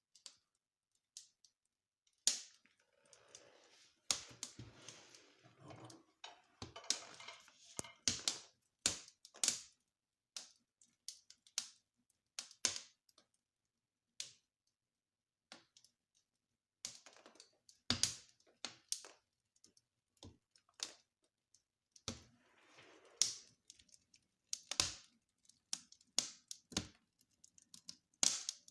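Wood fire crackling in a fireplace stove: irregular sharp cracks and pops, some much louder than others, with stretches of soft hissing between them.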